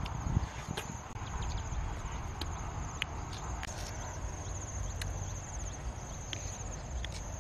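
Insects trilling steadily at a high pitch, with scattered faint clicks and a low rumble beneath.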